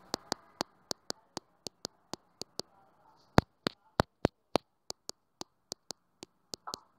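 Irregular series of sharp clicks, about three or four a second, with a few louder knocks around the middle.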